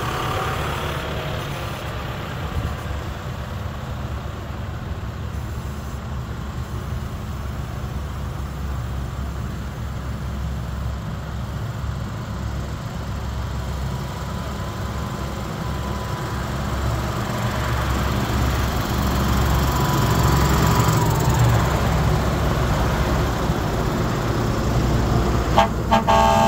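Convoy of diesel farm tractors driving past, a deep steady engine rumble that grows louder as they draw near. A long horn note sounds in the middle and dips in pitch as it goes by, and horns honk again near the end.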